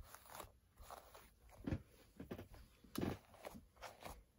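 A hairbrush pulled through a doll's tangled hair in about half a dozen short, uneven strokes.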